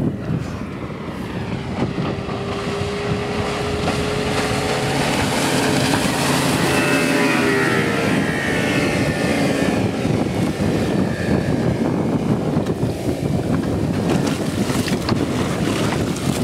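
Yamaha 200 outboard on a Cobia 25 deck boat running at speed and passing close by. Its engine note swells as it approaches and drops in pitch as it goes past about seven seconds in. Heavy wind buffets the microphone over the rush of water.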